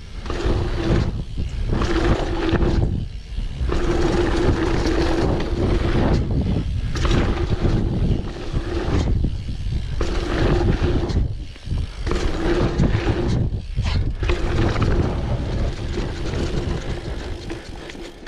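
Octane One Void dirt jump bike rolling fast along a dirt trail: tyres rumbling on hard-packed dirt with wind on the camera's microphone, and the rear hub's freewheel buzzing while coasting. The buzz and rumble drop away in several short lulls.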